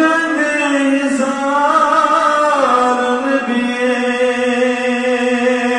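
A man's voice chanting a slow, melodic line that ends on one long held note.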